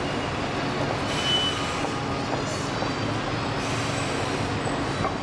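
Steady city traffic noise, with a heavy vehicle's engine running under it and a brief high squeal about a second in.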